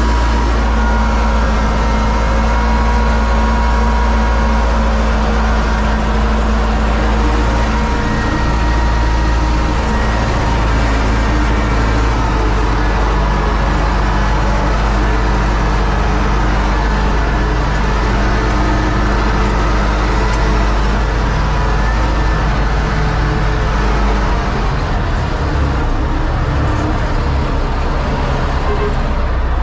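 UTB Universal U650 tractor's four-cylinder diesel engine running steadily while pulling a corn planter across the field, heard from inside the tractor's cab.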